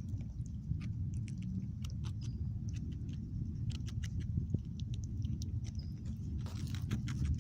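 A squirrel chewing avocado: a scatter of small, irregular clicks, over a steady low rumble.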